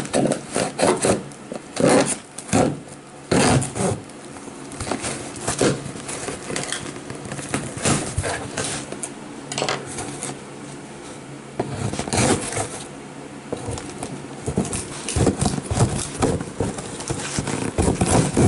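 Knife cutting through packing tape on a cardboard box, with irregular scraping, tearing and crackling of tape and cardboard as the box top is worked open. A faint steady hum runs underneath.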